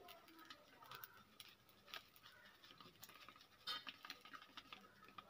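Faint crackling of dosa batter cooking on a hot tawa, a scatter of small pops and ticks, with one louder click nearly four seconds in.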